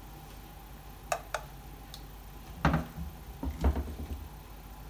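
Metal kitchen tongs clicking and tapping against a ceramic plate as pieces of steamed okra are set down: two light clicks about a second in, then a couple of duller knocks later.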